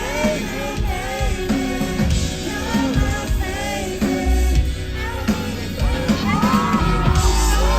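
Live pop-rock band playing with a lead vocal singing. The deep bass drops back in about halfway through and the music builds fuller near the end.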